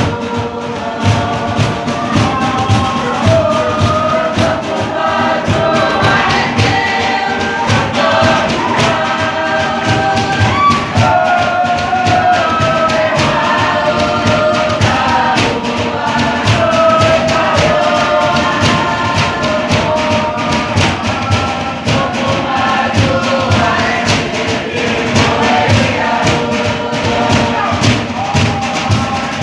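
Large group of voices singing a Tokelauan song together, carried along by a fast, steady drum beat.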